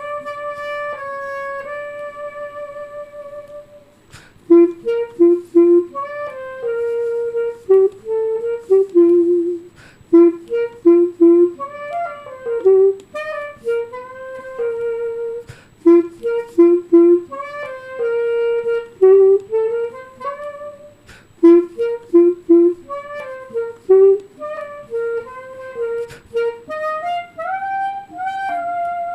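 Solo clarinet playing a melody: one long held note at the start, then phrases of shorter notes separated by brief pauses.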